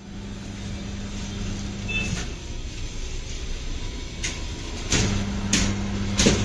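Motorcycle workshop repair noise: a steady low hum that stops about two seconds in and starts again at about five seconds, with a series of sharp knocks from tools on the bike.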